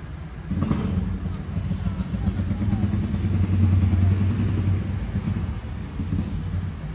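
A motor vehicle's engine passing: a low, steady engine hum that comes in about half a second in, is loudest around the middle, then fades.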